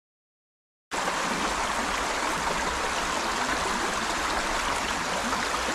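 Shallow river rushing over a rocky riffle: a steady, even water noise that cuts in abruptly about a second in after dead silence. The river is running a little high.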